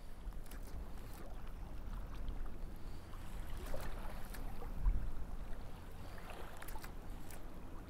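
Wind buffeting the microphone with small waves lapping around a wading angler in shallow bay water, and a few faint ticks.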